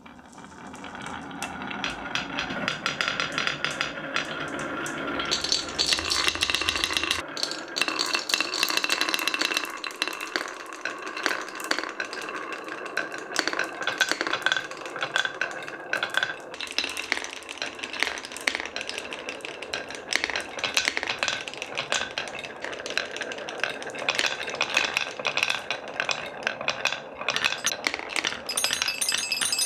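Glass marbles rolling and clattering down wooden HABA wave-slope marble-run tracks: a steady rattling rumble full of small rapid clicks. Near the end, high ringing tones join in as marbles strike metallophone bars.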